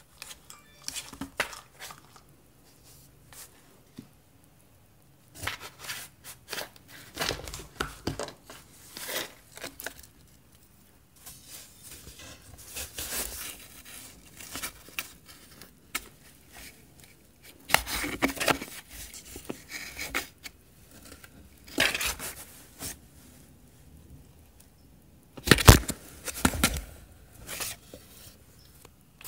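Bengal cat pawing and clawing at a cardboard box and a strap toy pushed through a hole in it: irregular bursts of scratching and rustling cardboard, loudest near the end.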